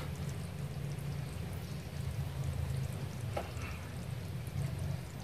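Crowds of baby black apple snails feeding on food among floating water lettuce: a faint, fizzing crackle with scattered small clicks, over a low steady hum.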